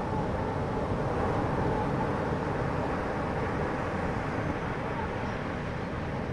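Boat engine running at a steady pitch, with water and wind noise under it.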